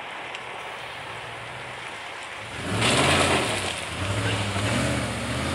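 Pickup truck driving over a railroad grade crossing: about two and a half seconds in, a loud rush of tyres and engine rises quickly, and the engine note then wavers up and down as the truck accelerates across. Before that, only a low steady rumble from the tractor-trailer moving off.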